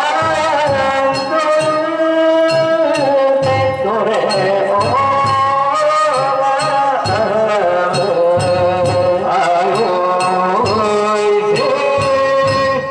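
Men singing a danjiri pulling song (hiki-uta) in long, drawn-out, wavering notes, with a big drum beating under it.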